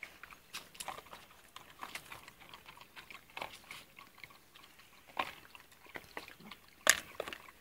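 Stray puppies chewing and biting at food from a hand: irregular small wet clicks and smacks, with one sharper click near the end.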